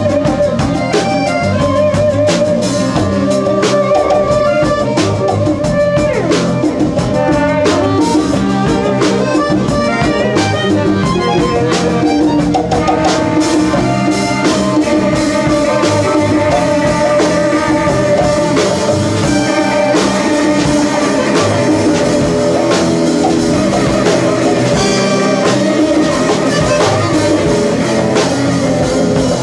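Live band playing an instrumental jam: drum kit and cymbals keeping time under guitars, with a held, wavering melody line on top.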